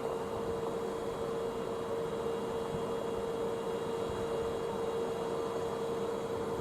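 A steady hum at one constant mid-range pitch over a low hiss of background noise, holding level throughout.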